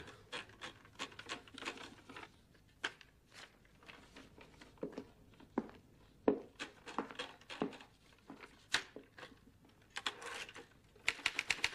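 Paper rustling as sheets are handled and wound into a manual typewriter, with scattered light clicks and knocks. Rapid keystrokes on the typewriter start near the end.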